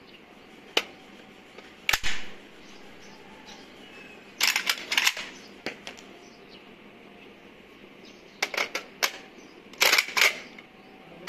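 Metallic clicks and clacks from a locally made 8mm automatic rifle as its box magazine is taken out and put back and its action is handled. Single clicks come about one and two seconds in, then quick clusters of clacks near the middle and again toward the end.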